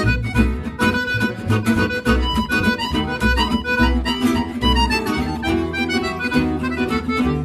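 Instrumental music: a melody of held notes over a low bass note that comes back about once or twice a second.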